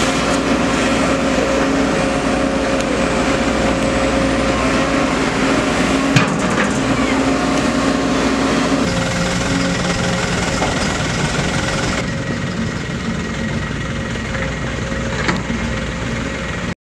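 Sumitomo SH210 long-reach excavator's diesel engine running steadily, with a couple of sharp metal clanks, the loudest about six seconds in.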